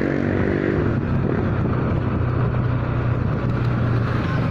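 Motorcycle engine heard from the rider's seat. Its revs drop about a second in, and it then runs steadily at low speed.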